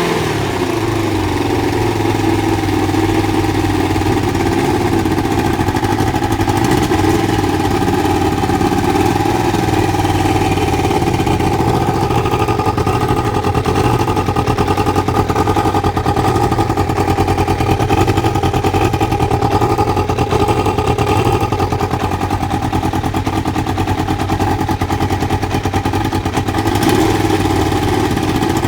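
Kawasaki ZL600 Eliminator's inline-four engine idling steadily, with its carburettor air/fuel mixture screws set just under two turns out; the owner judges it to be running a lot better. There is a slight swell in engine sound near the end.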